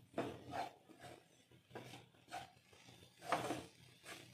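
Spatula stirring and scraping grated cauliflower and ground spices around a nonstick kadai, in a series of short, irregular strokes, the loudest scrape a little past three seconds in.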